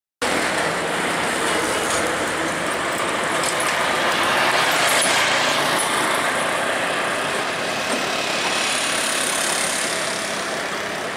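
Loud, even rumble of vehicle noise, cutting in suddenly just after the start, swelling about halfway through and easing slightly near the end.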